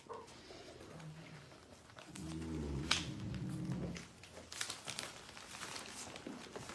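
Newspaper crinkling and rustling under a puppy's paws as it scrabbles over the sheets, with scattered crackles and a sharp click about three seconds in. A low murmur runs for about two seconds in the middle.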